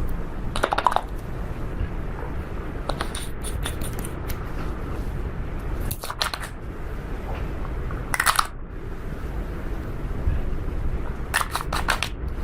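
Slime being squished and pressed by hand, giving short bursts of crackly popping every two or three seconds over a steady low rumble.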